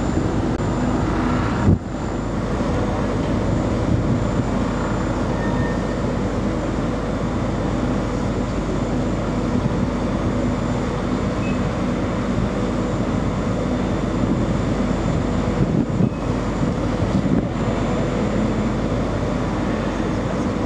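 Steady drone of a ro-ro passenger ferry's engines and machinery heard from its open deck, with a few steady hums over a dense rumble. It briefly drops out about two seconds in.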